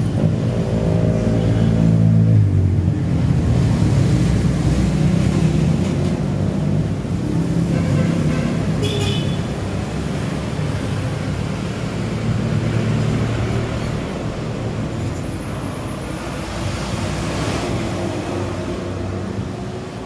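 A motor vehicle engine running continuously, with a pitched drone that shifts over the first few seconds and then settles into a steadier rumble.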